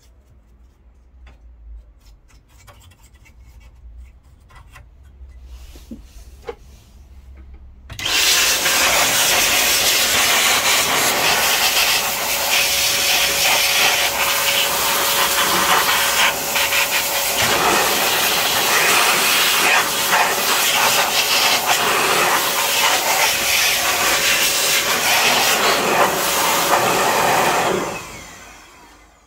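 Faint scratching of a brush over a circuit board. About 8 seconds in, an air blower switches on and blows loud rushing air with a steady motor whine for about 20 seconds, blowing dust off the receiver's boards. It dies away near the end.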